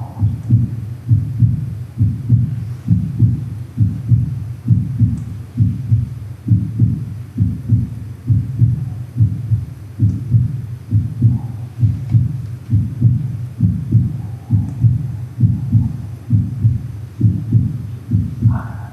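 A recorded heartbeat beating steadily, a little over once a second.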